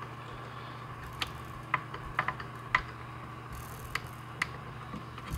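Screwdriver turning and clicking against the metal screws and choke linkage at the carburetor of a Craftsman 2.0 chainsaw, as a carburetor mounting screw found loose is tightened. It makes about ten small, irregular clicks and ticks over a steady low hum.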